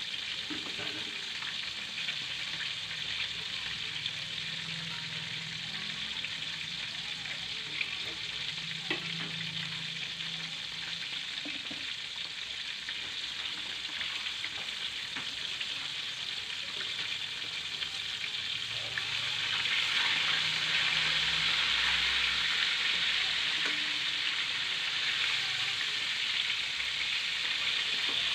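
Flour-coated chicken pieces sizzling steadily as they fry in hot oil in a wok, with now and then a light click of tongs turning them. The sizzling gets louder about two-thirds of the way through.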